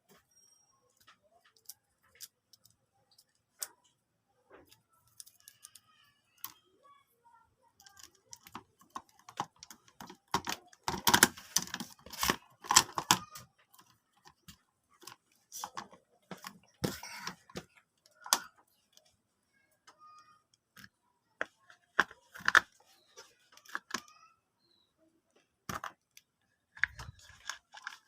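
Irregular clicks and rattles, like small objects being handled, busiest about halfway through and again near the end; no saw motor is running.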